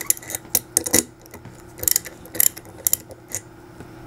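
A 7/16-inch ratcheting box wrench clicking as it turns the fill nipple on a paintball tank's regulator to loosen it. It makes a string of short, irregular metal clicks, about ten in four seconds.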